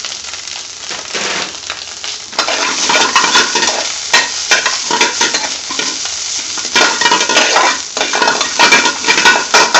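Spinach and onions sizzling in oil in a metal frying pan, stirred and scraped with a metal spoon against the pan. The stirring grows busier and louder from about two and a half seconds in.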